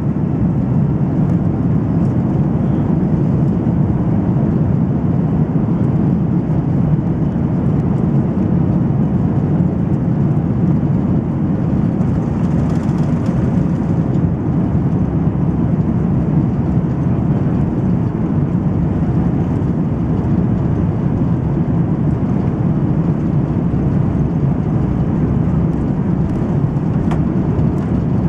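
Steady low rumble of an Airbus A330-300 airliner taxiing, its engines and running gear heard from inside the cabin.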